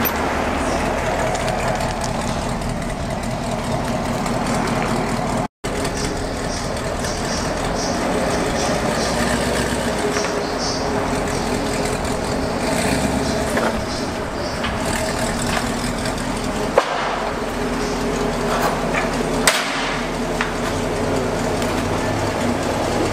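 Chevrolet Camaro 1LE's engine idling and creeping along at low speed through long-tube headers that have an exhaust leak at the header joint, a steady exhaust drone. Two sharp knocks in the second half.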